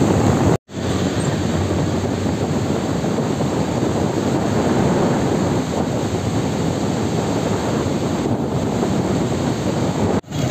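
Wind buffeting a phone microphone: a steady, loud rushing noise. It cuts out completely for a moment just under a second in and again near the end.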